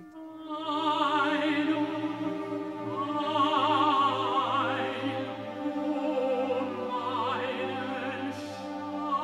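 Operatic singing: a voice holding long, slow notes with a wide vibrato over a sustained orchestral accompaniment.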